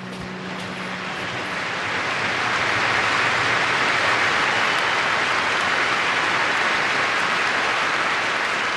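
Large stadium crowd applauding, swelling over the first few seconds, then holding steady.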